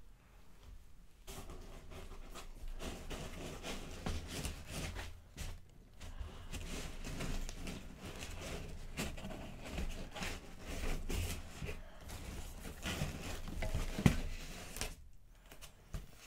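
Rustling and scraping of packing being handled: plastic-bagged pieces moved about and thick foam insert layers shifted and lifted in a box, with small clicks throughout and one sharp knock near the end.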